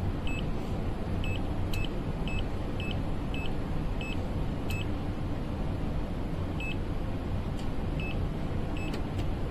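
Short high-pitched beeps from the HABOTEST HT121 pen multimeter's buzzer, about a dozen at irregular spacing, as the meter senses live phases during a three-phase rotation sequence test. A steady low hum runs underneath.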